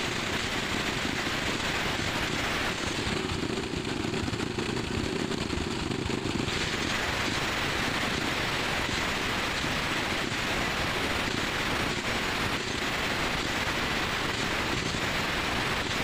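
Electric angle grinder with a thin cut-off disc grinding into a steel splined shaft on a motorcycle engine, re-cutting its worn splines: a steady grinding whine with the motor running throughout. About three seconds in the grinding eases for a few seconds, then bites in fully again.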